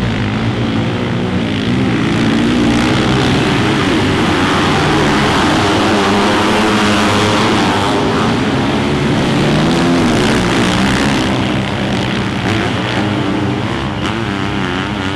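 Several sidecarcross outfits' motorcycle engines running together, their pitches rising and falling as they rev, easing off a little near the end.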